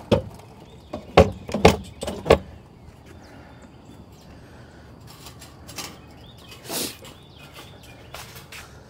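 Hard knocks and clunks from equipment being handled in a pickup truck bed, four loud ones in the first two and a half seconds, followed by quieter clicks and a short scrape.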